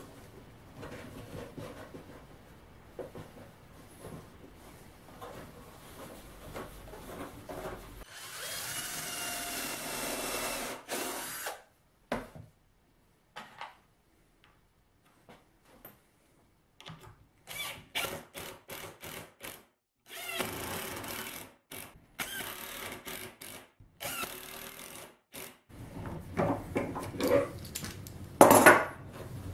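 Cordless drill running in short spells, the longest lasting about three seconds about a third of the way in, amid knocks and scrapes of plywood jig parts and a bar clamp being handled on the bench. A sharp loud knock comes near the end.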